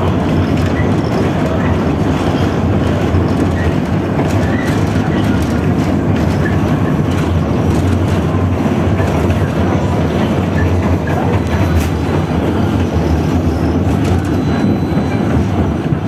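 71-154 (LVS-2009) tram heard from inside the car while running along the track: a steady low rumble of wheels on rails and running gear, with a few faint clicks.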